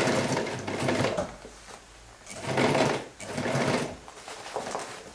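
Keller-51 sewing machine stitching through the coated tarpaulin of a snow-tube cover, running in short spurts with pauses between them. The stiff, slippery fabric feeds poorly.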